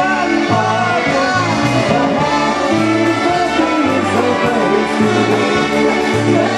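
Live polka band playing an instrumental stretch of a polka, with a melody line over an even oom-pah bass.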